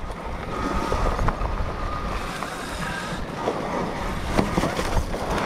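Electric dirt bike riding a bumpy trail: steady wind rush over the microphone, with a faint motor whine in the first half and scattered clicks and knocks from the bike over the ground.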